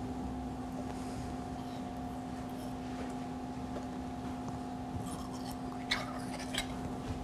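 Steady hum of a kitchen, with the faint sound of a knife slicing through a slippery sea cucumber on a plastic cutting board, and a few light knocks and clicks about five to seven seconds in.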